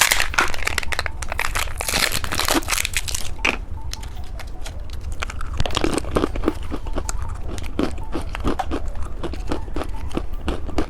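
Plastic wrapper crinkling and tearing in dense, irregular crackles as a candy surprise egg is handled and unwrapped.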